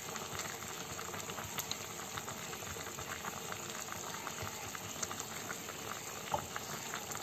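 Pot of chicken, peanut and coconut-water stew at a boil: a steady bubbling with many small pops and ticks.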